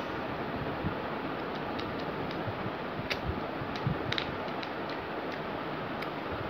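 Steady background hiss, with a few faint clicks and taps about three, four and six seconds in.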